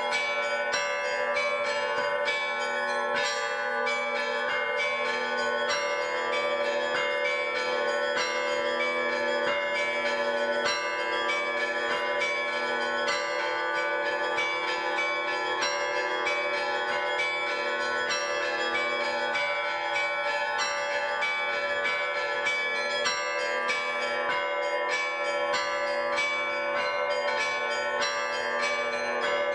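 Russian-style bell ringing (zvon) on several bells: small bells struck in quick, continuous patterns over larger bells whose lower tones hang on throughout, at a steady level.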